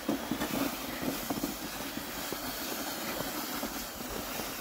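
Plastic sled sliding over packed snow, a steady scraping rumble, with crunching footsteps in the snow.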